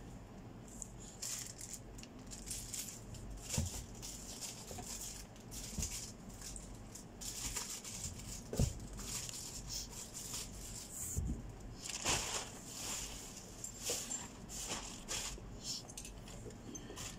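Rustling and crinkling of packaging as items are handled and packed into a cardboard carton, with a few dull thumps as things are set down.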